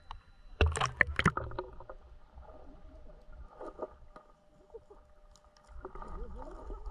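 Water splashing and sloshing, with a short cluster of louder splashes about half a second to a second and a half in, then softer water movement.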